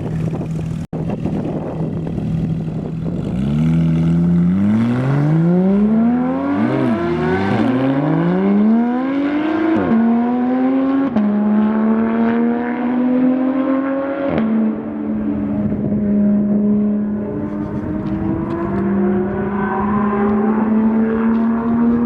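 Car engine running steadily, then accelerating from about three seconds in, its pitch climbing and dropping back at gear changes, and holding a steady drone for the second half.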